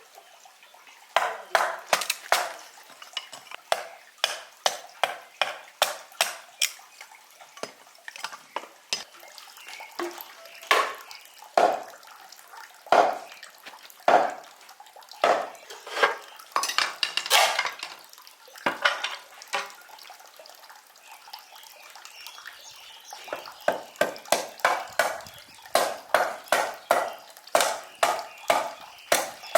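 A hand tool striking wood in a long series of sharp knocks, about two a second. The strikes come in runs, ease off briefly past the middle, then resume faster near the end.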